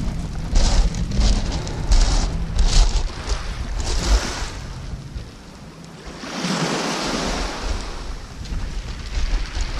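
Wind buffeting the microphone in gusts, over small waves washing onto a shingle beach. A wave surges up the pebbles with a rising hiss about six and a half seconds in.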